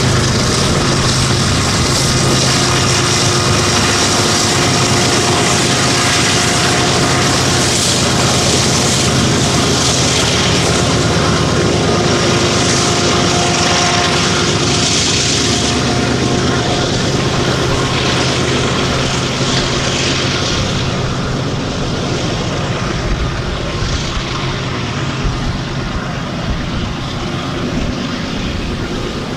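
Diesel locomotives of a BNSF freight train passing, a steady, loud engine drone over the rumble and hiss of wheels on rail, easing off slightly near the end.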